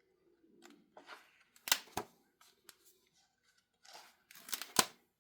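Pages of a large, heavy book being turned by hand: paper swishing, with a sharp slap as a page lands, about two seconds in and again near the end.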